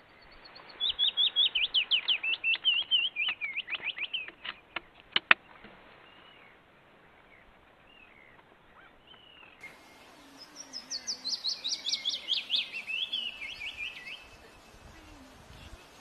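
A leaf warbler singing two song phrases. The first is a run of quick repeated high notes ending in a few sharp clicks. After a pause of about five seconds comes a fast trill that falls steadily in pitch.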